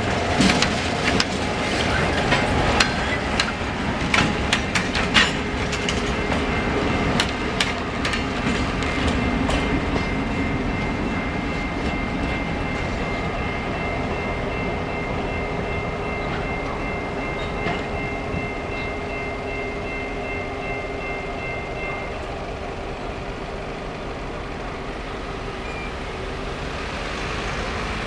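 Freight train rolling through a grade crossing: a diesel locomotive and freight cars pass, with wheels clicking sharply over the rail joints for the first third, then a steadier rolling that slowly fades as the train clears. A high steady ringing, typical of the crossing's Safetran electronic bell, runs through the middle and stops about three-quarters of the way through.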